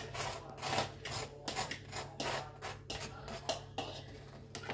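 Eggs and a little milk being beaten in a bowl, the utensil scraping against the bowl in quick, irregular strokes, about three or four a second.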